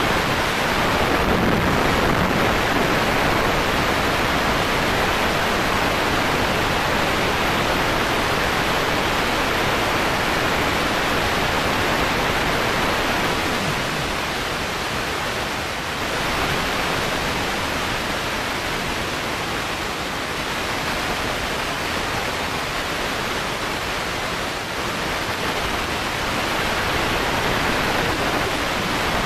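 Noise inside the cabin of a Volkswagen Beetle bilcross race car: engine and car noise heard through the onboard camera as a steady, dense rush with no clear engine note. It dips slightly about thirteen seconds in and picks up again at about sixteen seconds.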